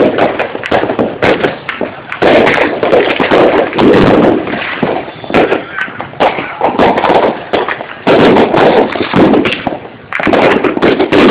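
Fireworks and firecrackers going off in a dense, loud barrage of overlapping bangs and crackles that swells and eases, with short lulls about two seconds in and near the end.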